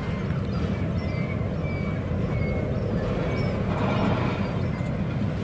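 Low steady rumble of the tugs' and ship's engines across the water, under a bird's short high chirps repeating every half second or so.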